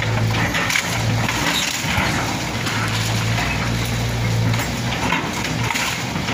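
Tracked hydraulic excavator pulling down a wrecked wood-frame building: its diesel engine drones under load, swelling and easing in stretches of about a second, with crunching and cracking of debris as the boom works the wreckage.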